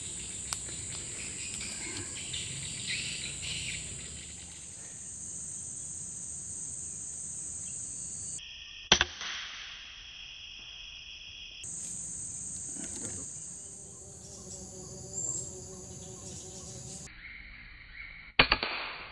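Two sharp air-rifle shots, the first about nine seconds in and the second near the end, over a steady high-pitched chorus of insects.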